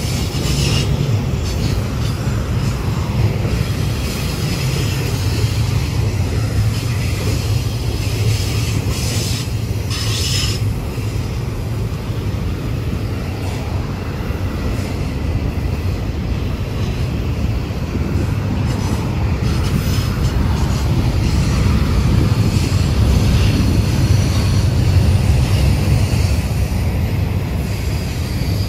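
Double-stack container train cars rolling past: a steady low rumble of wheels on rail, with brief high wheel squeals about a second in and again around ten seconds in.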